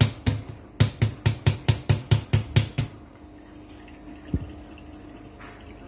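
A plastic colander of boiled squash pieces shaken over a steel sink to drain it, knocking in a fast, even rhythm of about five beats a second that stops about three seconds in. After that there is a faint steady hum and one dull thump.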